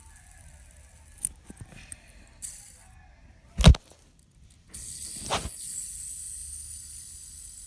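Handling noises: a few small clicks and knocks, then one loud thump about halfway through. Just after it a steady hiss starts and slowly fades, with another knock in it.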